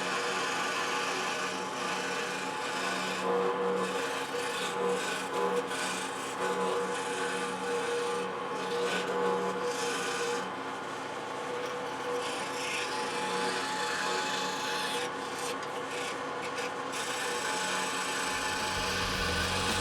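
Scroll saw cutting wood: a steady motor hum under the rasp of the blade working through the wood.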